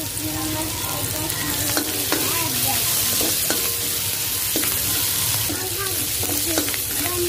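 Onion and garlic sizzling in hot cooking oil in a pan, stirred with a spatula that gives scattered clicks and scrapes against the pan.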